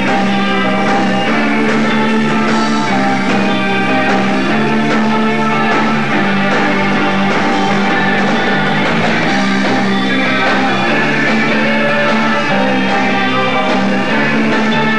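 Live rock band playing, with electric guitar and drums; the sound is dense and unbroken.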